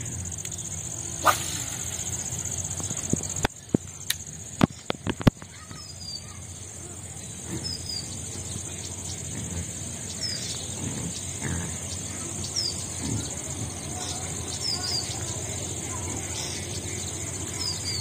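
Waterside ambience: a steady high insect drone, with short, falling bird chirps repeating through it and a few sharp clicks in the first five seconds.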